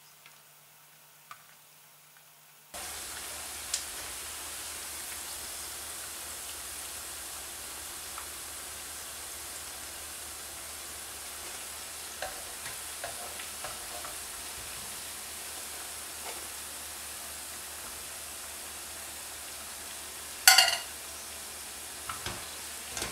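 Potato-and-mince meatballs frying in hot oil: a steady sizzle that starts about three seconds in. A few light clinks, and one loud clank of the wire strainer against the pan near the end.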